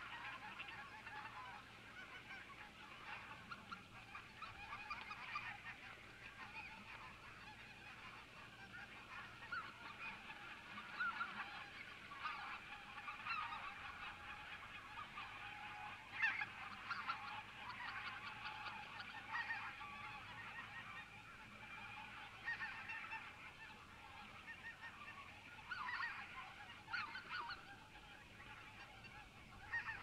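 A large flock of wild geese calling, faint: an unbroken chorus of overlapping honks, with single louder calls standing out now and then.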